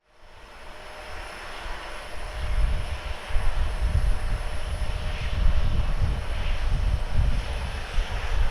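Airliner jet engines running: a steady rush with faint high steady tones over a low, uneven rumble that builds over the first few seconds.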